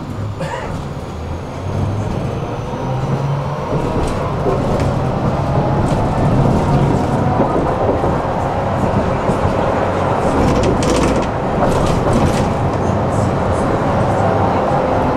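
Tram pulling away and gathering speed, heard from inside the car: the traction motor's whine rises in pitch over the rumble of wheels on the rails. A few sharp clicks come from rail joints about two thirds of the way in.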